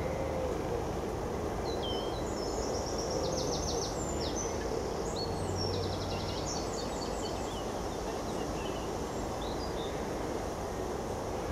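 A songbird sings in quick trills and chirps over a steady distant rumble from an approaching Class 56 diesel locomotive. The bird song falls quiet about nine seconds in.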